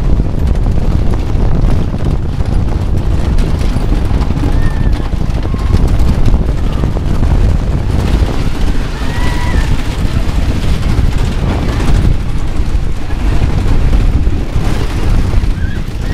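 Heavy wind buffeting the microphone and the running rumble of a roller coaster in motion, heard from aboard a car during the ride.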